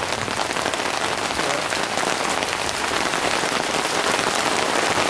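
Heavy thunderstorm rain pouring down steadily: a dense hiss of countless drops striking the ground and plants.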